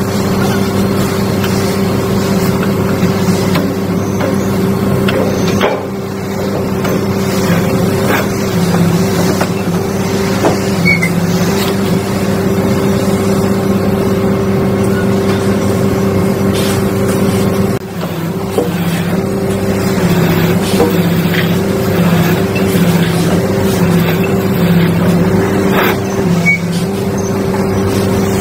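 Giken SA100 silent piler at work: its hydraulic power unit runs with a steady hum. In the second half the pitch steps up and down about once a second as the hydraulic press cycles under load, with a few faint metal knocks.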